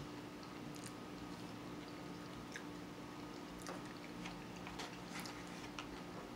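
Faint eating sounds: a plastic fork clicking and scraping in a foam takeout container, with chewing, as scattered short clicks over a steady low hum.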